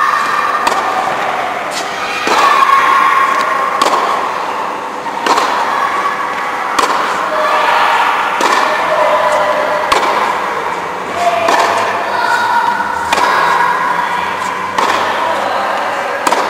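Tennis balls struck by rackets in a baseline rally on an indoor court, a sharp pock about every second and a half, ringing in the hall. Sustained tones, like music or voices, run underneath.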